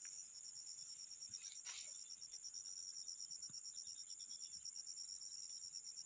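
Insect chorus: a steady high-pitched drone with a fast, even pulsing trill under it.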